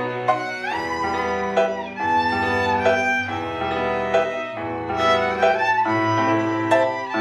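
Orchestral film score: a violin melody over low strings, with an upward slide into a held high note about a second in.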